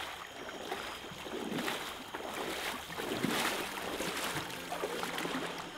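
Water splashing and sloshing around a person's legs as he wades through knee-deep water, a surge of sloshing with each stride, about one a second.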